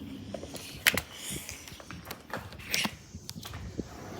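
A door being opened: a sharp latch click about a second in, with footsteps and shuffling around it.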